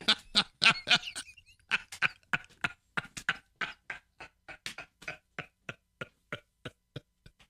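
Two men laughing hard: a rapid run of short, breathless bursts, about four a second, growing fainter toward the end.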